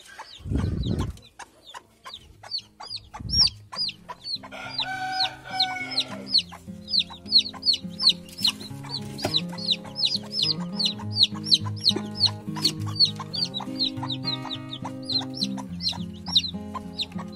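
Newly hatched chicks peeping steadily, several short high falling peeps a second, from about six seconds in. A hen gives a lower call around five seconds in, and a short low rustle comes near the start. Background music with held low notes plays under the peeping.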